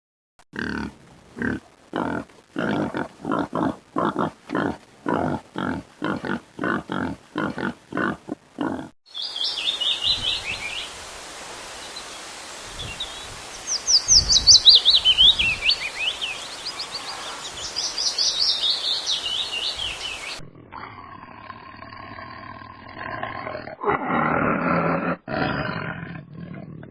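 Three different animal recordings one after another: first a regular series of deep pitched calls about two a second, then high chirping calls and falling trills over a hiss, then a lower drawn-out call near the end.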